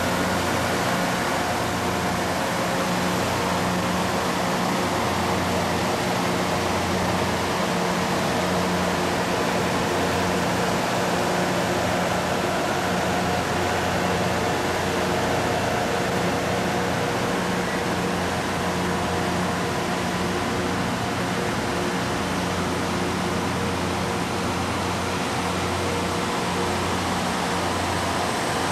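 LORAM rail grinder's diesel engines running steadily: a low drone under a constant hiss.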